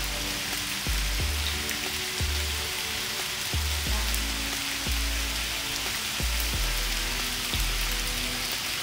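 Marinated beef and vegetables sizzling steadily on an electric tabletop griddle, over background music with low sustained notes.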